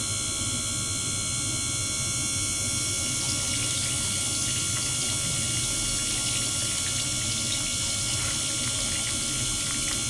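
Ultrasonic probe driven in a tub of water, throwing off bubbles: a steady watery hiss with several faint, steady high-pitched tones over it.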